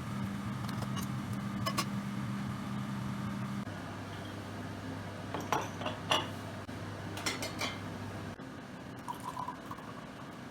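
Breakfast tableware being handled: dishes and glassware clinking in a few short clusters, over a steady low hum that drops in pitch about a third of the way in and cuts off near the end.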